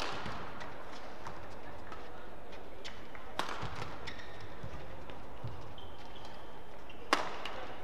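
Badminton rally: sharp racket hits on the shuttlecock and quick footsteps on the court mat, with short shoe squeaks in the middle; the loudest hit comes near the end.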